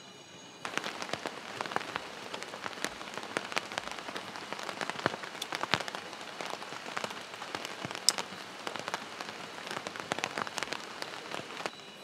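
Heavy rain falling on a tarp, a dense run of drops hitting close by, starting suddenly about a second in and stopping just before the end.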